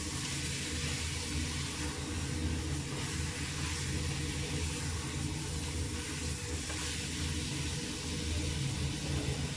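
Chunks of meat frying and steaming in a stainless steel pot, a steady hiss over a low, steady hum.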